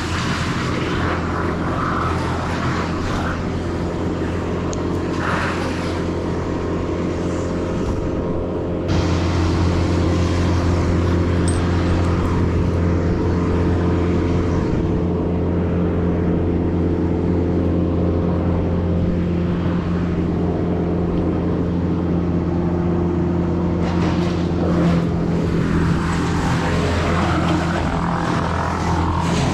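Crane's diesel engine running steadily at a droning pitch, picking up in load and level about nine seconds in.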